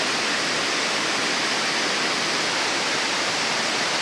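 A 35-metre waterfall: falling water making a steady, even rush with no breaks.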